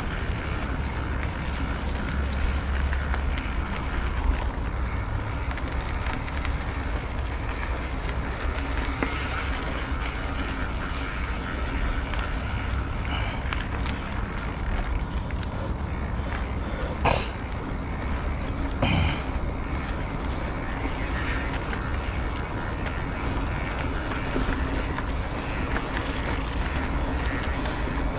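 Steady road traffic noise with a low wind rumble on the microphone, heard from a moving bicycle. A sharp click comes about seventeen seconds in, and another short sound about two seconds later.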